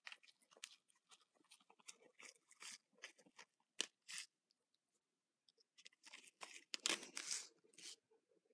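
Small plastic packet of bouncy-ball crystals crinkling as it is tipped and shaken, the crystals trickling into a plastic ball mold: faint scattered ticks and rustles, busier and louder about six to seven and a half seconds in.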